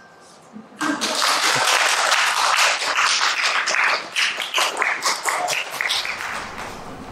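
Audience applauding: clapping starts about a second in, holds full, then thins out and dies away near the end.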